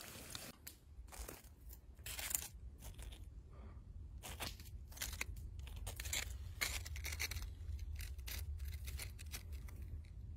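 Crisp breaded fried chicken nuggets and a tortilla being handled: a run of irregular crackly crunches and scrapes.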